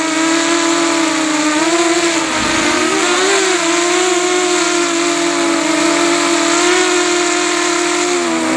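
FPV freestyle quadcopter's brushless motors and propellers whining, the pitch drifting up and down with the throttle, dipping briefly about two and a half seconds in and rising near the end. Heard through the camera mounted on the quad's frame.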